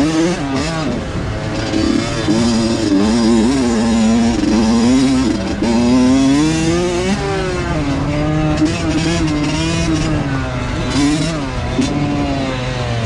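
Two-stroke dirt bike engine being ridden hard, its pitch rising and falling again and again as the throttle is opened and rolled off and the gears change.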